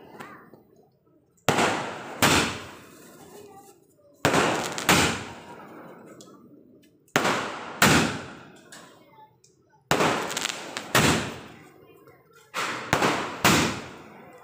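A 30-shot multi-shot aerial firework cake firing: sharp bangs come mostly in pairs about half a second apart, a pair roughly every three seconds, each pair trailing off in a fading crackle. Each pair is a shell launching from its tube and then bursting overhead in red stars.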